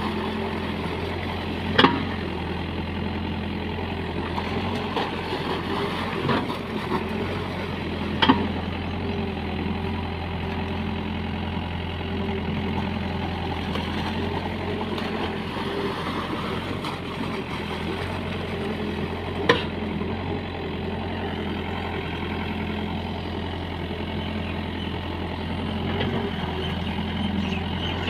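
Heavy diesel engine of earthmoving machinery running steadily at low revs, with about five sharp knocks at irregular intervals.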